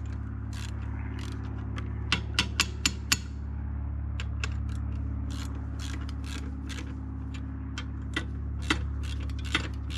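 Sharp metal clicks and knocks from adjusting the depth setting on an Alaskan chainsaw mill frame, in a quick cluster about two to three seconds in and again near the end, over a steady low hum.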